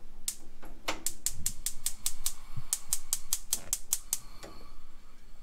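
A rapid run of sharp, evenly spaced clicks, about five a second, with a short break in the middle.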